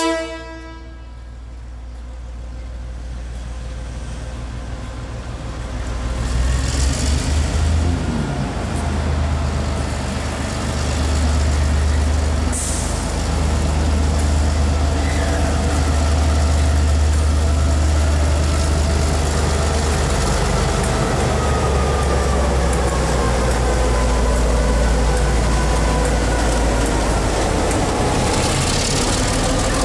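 KiwiRail DC-class diesel-electric locomotives hauling a work train approach and pass close by. Their deep engine rumble grows louder over the first dozen seconds and then holds steady as the lead locomotive draws level.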